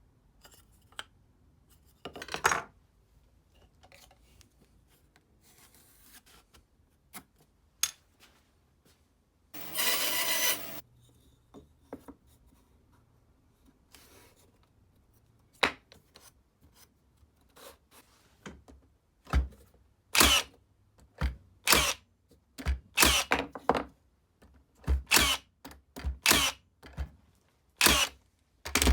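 Workshop handling sounds: tools and wood pieces being picked up, set down and knocked, with a short scraping rasp about a third of the way through and a run of sharp knocks about once a second near the end.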